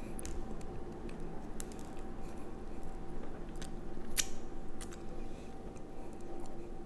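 Close-up eating sounds of a soft pretzel being pulled apart and chewed, with scattered sharp mouth clicks and smacks; the sharpest comes a little after four seconds in.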